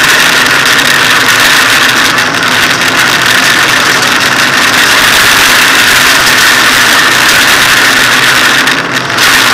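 Hyundai rally car's engine running hard under way, heard loud from inside the stripped cabin, with a brief dip in level near the end.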